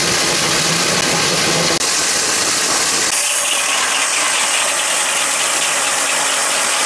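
HMC 500 electric core drill running under load, its 500 mm diamond bit cutting through concrete with a steady mechanical noise. About three seconds in the sound shifts abruptly and loses its low rumble.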